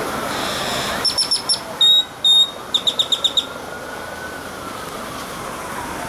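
Great-tailed grackle calling: a quick run of about five sharp notes, two long high whistles, then another quick run of about six notes, over steady background noise.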